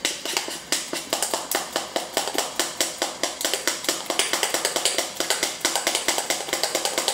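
A metal spoon beating thick bolinho de chuva batter in a glass bowl by hand, clicking fast and evenly against the glass, about four strokes a second.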